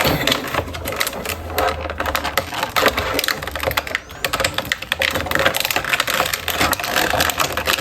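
Irregular rapid clicking and crinkling of items and packaging being handled close to the microphone, with a low rumble of handling noise.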